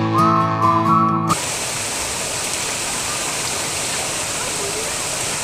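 Guitar-led background music cuts off abruptly about a second in, followed by the steady rush of flowing river water.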